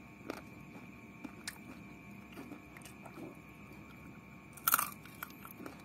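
Close-up eating sounds: a person biting and chewing a piece of chicken, bones included, with soft scattered mouth clicks and one loud crunch near the end.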